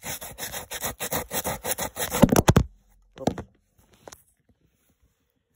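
Crumpled aluminum foil, dipped in water, scrubbed fast back and forth on a rusty chrome-plated metal mirror head to polish off rust: a quick rasping scrape that stops abruptly about two and a half seconds in. Two soft knocks follow, then quiet.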